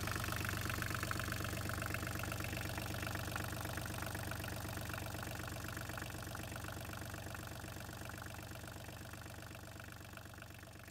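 Volvo Penta D1-30 three-cylinder marine diesel idling steadily, slowly fading away.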